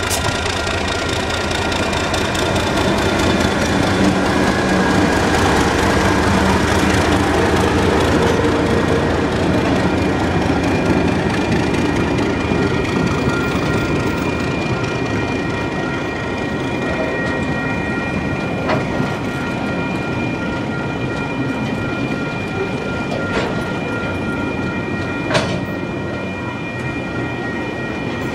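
A TasRail container freight train, hauled by an MKA and a DQ class diesel locomotive, passes slowly at about 15 km/h. The locomotives' engines are loudest in the first few seconds. After that come the wagons rolling by, with steady high-pitched tones from the wheels and a few sharp clicks of wheels over rail joints in the last third.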